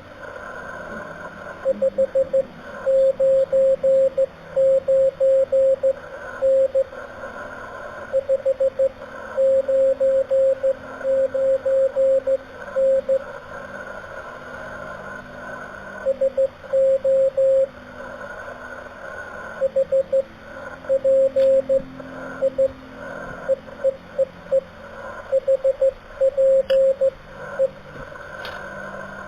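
Slow Morse code (CW) on an amateur radio: a single steady-pitched tone keyed on and off in dots and dashes, over steady band hiss, with fainter lower-pitched signals in the background.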